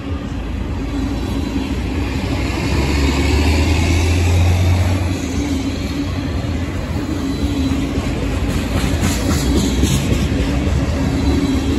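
Freight train of covered hopper cars rolling past: a steady rumble and rattle of steel wheels on rail. A low hum swells briefly about three to five seconds in, and a few sharp clicks come near the end.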